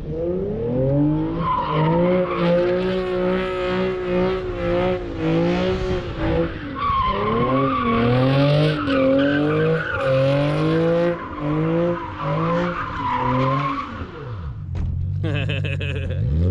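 Car engine revving hard in repeated surges while a sedan spins donuts, its rear tires squealing against the asphalt. Near the end the revs drop away.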